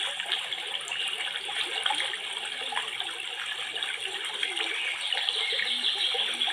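Steady rushing noise like running water.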